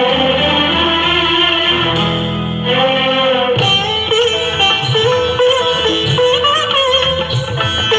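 Instrumental interlude of a Hindi film song: held string-instrument tones for the first few seconds, then an ornamented string melody with a percussion beat entering about three and a half seconds in.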